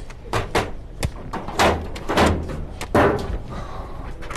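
Photocopier panels and paper trays being slid and shut during a repair: a quick series of clunks and sliding knocks over about three seconds.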